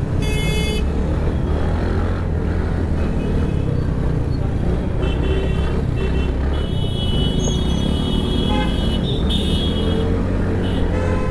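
Road traffic heard from a moving scooter, with a steady low rumble of wind and engines. Vehicle horns honk over it: a short blast right at the start, several overlapping horns from about five seconds in, and more near the end.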